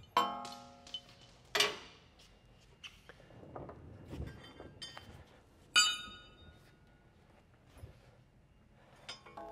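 Loose steel mounting hardware clinking against a pickup's frame as it is set into the frame holes: three sharp metallic strikes, the first and last ringing on briefly, with lighter taps between.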